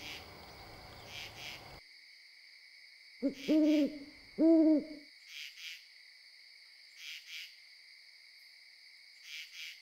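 An owl hoots twice in a row about three seconds in, each hoot rising and falling in pitch. Night insects keep up a steady high drone with short paired chirps throughout.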